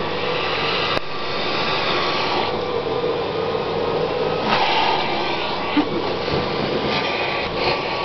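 Vacuum cleaner running steadily with a constant hum, the rush of air through its hose nozzle growing louder and softer a few times as the nozzle is moved over a cat's fur.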